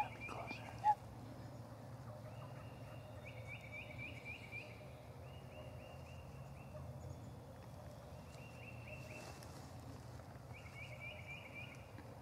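Wild turkey gobblers gobbling: several rattling gobbles a few seconds apart, two of them overlapping. Just under a second in, a short sharp note is the loudest sound.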